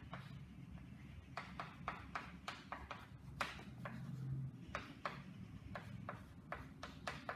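Chalk writing on a blackboard: a quick, irregular string of short taps and scratches, about three a second, as the chalk strikes and drags across the slate.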